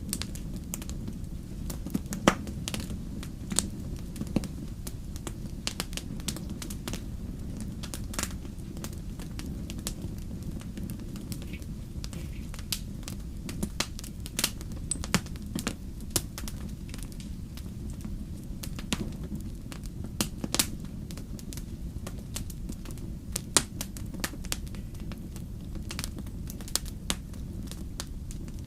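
Wood fire crackling: irregular sharp pops and snaps over a steady low rumble of burning.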